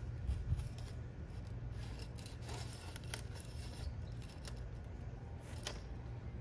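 Telescoping flagpole being handled and set upright in its hole, giving a few short scrapes and clicks, the sharpest near the end, over a low steady rumble.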